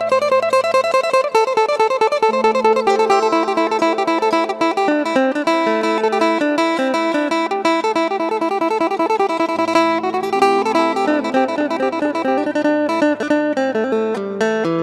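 Isan phin music (Thai plucked lute): a fast, busy plucked melody over a steady low drone that drops out about a second in and returns later.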